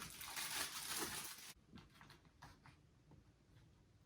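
Spoon scooping shredded beef in barbecue sauce from an MRE pouch: soft wet squishes and light scrapes for about the first second and a half, then only a few faint clicks.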